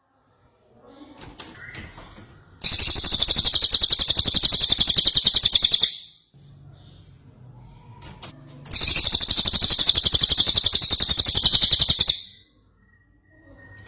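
Songbird song from a cucak jenggot and cililin recording: two long, very fast, high trills of about three seconds each, with faint softer chatter before, between and after them.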